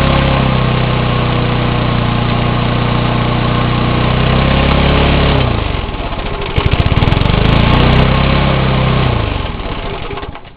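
Briggs & Stratton single-cylinder lawn mower engine running on a cold start after years unused, freshly cleaned carburetor. About five and a half seconds in it slows almost to a stall, catches and picks back up, then sags again and dies near the end.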